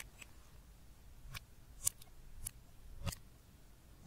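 Five short, sharp clicks, spaced about half a second apart, as small plastic makeup items are handled over glass dishes; the loudest comes near the middle.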